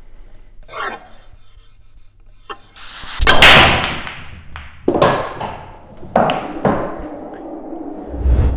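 Power break on an English pool table: the cue drives the cue ball hard into the racked pack with a loud crack, then the balls clack together and knock off the cushions for several seconds, with further sharp knocks and a low rumble near the end.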